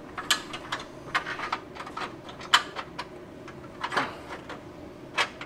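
Irregular clicks and light metallic knocks as a steel battery-tray bracket and its bolts are worked into place by hand, with a faint steady hum underneath.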